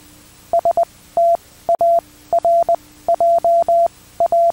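Electronic alert beeps of an emergency broadcast: short pips and longer beeps at one pitch in an irregular, code-like pattern, over a faint steady low hum.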